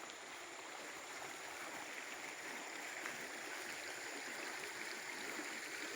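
Steady rushing of flowing water from a mountain stream below a waterfall.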